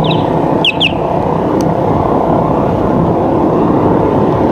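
Steady rush of wind on the microphone and tyre noise from a bicycle rolling along a wet road. A few short, high, falling chirps come in the first second.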